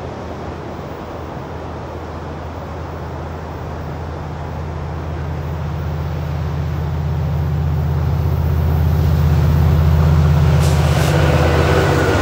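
Amtrak Pacific Surfliner diesel passenger train approaching on the coastal track: the low, steady drone of its diesel engine grows louder as it nears, over the hiss of surf. A couple of brief clicks from the train come near the end as the bi-level cars draw close.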